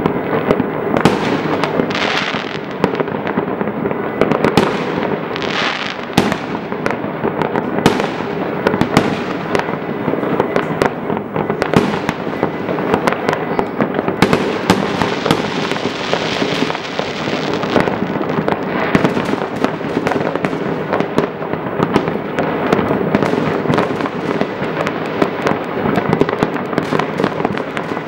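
Fireworks going off all over a city at once: a dense, continuous barrage of overlapping bangs and crackles, near and far, with no let-up.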